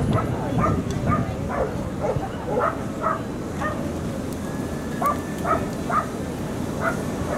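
A dog barking repeatedly in short, high yaps, about two a second, with a pause in the middle, over a low murmur of background noise.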